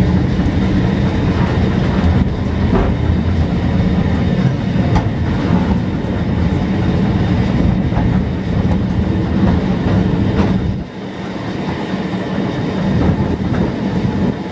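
Cable-hauled Great Orme Tramway car running downhill on its rails: a steady loud rumble from the wheels and running gear, with scattered clicks and knocks. The low rumble eases off about eleven seconds in.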